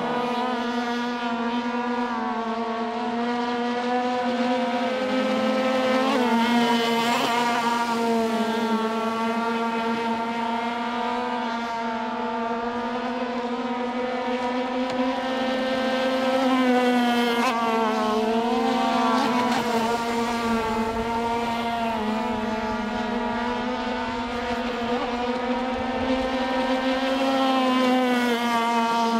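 Radio-controlled model racing boats' small two-stroke engines running flat out, a steady high-pitched buzz whose pitch dips and rises slightly as the boats turn.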